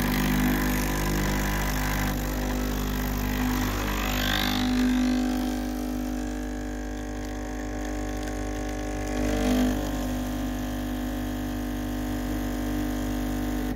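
Breville Infuser's vibratory pump running with a steady buzzing hum as it forces water through the coffee puck during a programmed single-shot extraction; it cuts off at the end.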